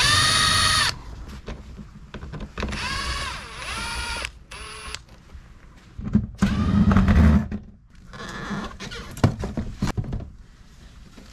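Ryobi cordless drill backing screws out of a travel-trailer window frame: two runs of motor whine, the first steady for about a second, the second a little later rising and falling in pitch. About halfway through comes a loud low rattling knock, then scattered clicks and knocks as the aluminium window frame is worked loose from its opening.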